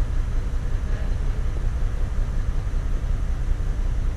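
Chevrolet TrailBlazer's 4.2L Vortec inline-six engine running steadily, a low rumble.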